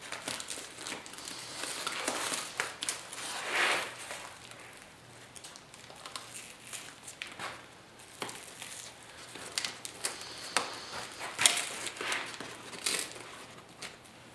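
Old motorcycle seat cover being handled and worked loose from the seat pan: irregular crinkling, scraping and tearing with scattered sharp clicks.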